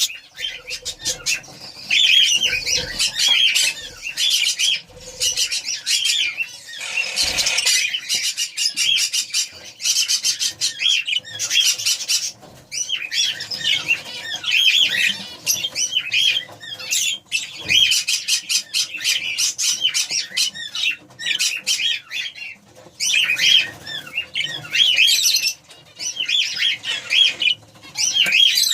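Budgerigars chattering and warbling continuously in quick chirps and squawks, with a brief flurry of wing flapping about seven seconds in.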